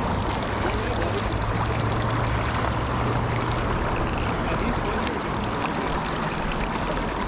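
River water running steadily, an even noise throughout.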